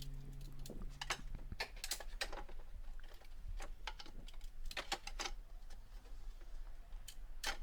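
Scattered light clicks and clinks of hand tools being handled, irregular and faint. A held music note carries over from before and dies away about a second and a half in.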